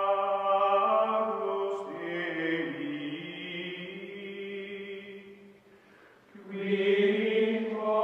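Outro music of choral chanting in long held notes, shifting pitch about two seconds in, fading away near six seconds and swelling back in.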